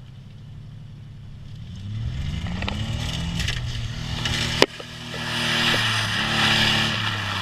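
Nissan 300ZX's V6 engine revving hard, its pitch climbing about two seconds in. A sharp knock comes just past the middle with a brief drop in revs. The revs then climb again under a loud hiss of tyres on the wet road.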